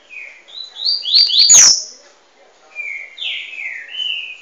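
Double-collared seedeater (coleiro) singing two phrases of quick, slurred whistled notes. The first phrase is the louder, peaking about a second and a half in; the second comes near the end.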